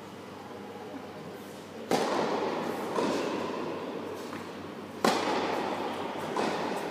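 Tennis balls struck by rackets during a rally, the sound echoing in a large indoor hall. There are two sharp, loud hits about three seconds apart, each followed about a second and a half later by a fainter hit.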